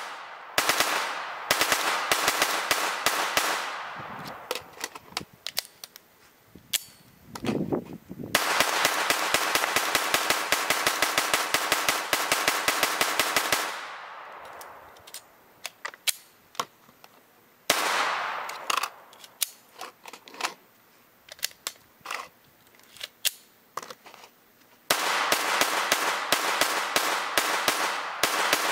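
AR-15-style semi-automatic rifle firing fast strings of shots. Between the strings come stretches of slower single shots.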